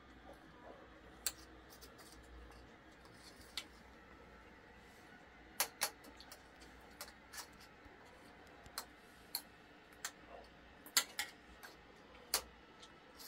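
Spoons clicking and scraping against a metal tray and a plate, a dozen or so sharp clicks at irregular intervals over a low steady hum.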